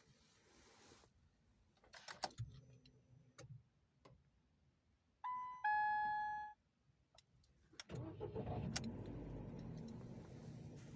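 Ford Focus II being started: a few key clicks, then a two-note dashboard chime falling in pitch. About eight seconds in the engine cranks, catches and settles into a steady idle.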